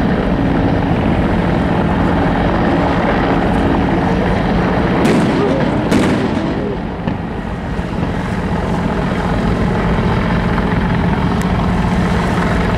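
Steady rumble of boat engines and wind over open water, with a low steady hum, broken by two sharp bangs about five and six seconds in: warning shots fired at the fleeing suspect boat.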